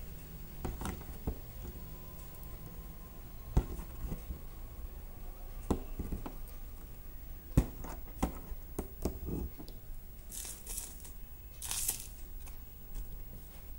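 Aari hook needle punching through taut embroidery fabric in a frame while sugar beads are stitched on, with scattered light taps and clicks. Near the end come two short rasping swishes of thread or cloth.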